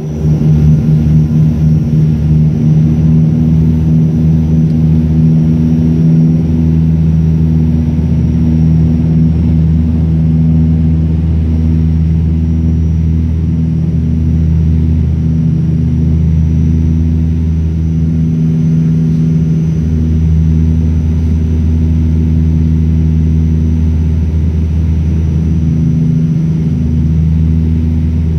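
Cabin drone of an ATR 72-200 turboprop airliner on its landing approach, heard inside the cabin: the propellers and engines make a loud, steady hum of several low held notes, the deepest one swelling and fading every few seconds.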